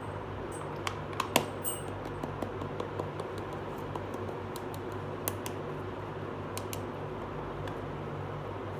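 Small hard-plastic clicks and taps as a miniature pink plastic toy cooking pot and its lid are handled: a quick run of sharp clicks between about one and three seconds in, the loudest near a second and a half, and a few more around five seconds, over a steady low hum.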